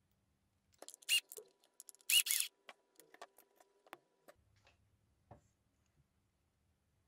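Small plastic parts of a 1/14 RC truck axle differential clicking and rattling as they are handled. The loudest clicks come about one and two seconds in, followed by softer, scattered taps.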